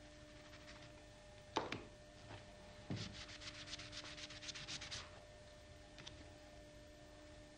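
Paintbrush scrubbing paint onto a sheet of paper laid flat on a table, in quick repeated strokes for about two seconds, preceded by a sharp knock and a low thump.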